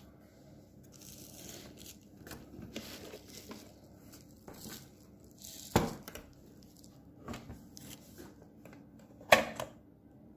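Plastic wrapping rustling and crinkling as the cassette unit is handled and turned over, with two sharp knocks, the second and louder one near the end.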